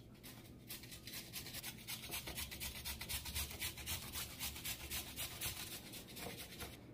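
Carrot being grated on a handheld flat metal grater: a quick, even run of rasping strokes.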